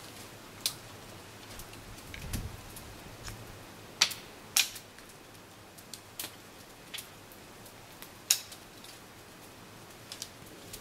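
Small wood campfire crackling: scattered sharp pops and snaps at irregular intervals, the loudest about four seconds in and again a little after eight seconds, with one dull low thump about two seconds in.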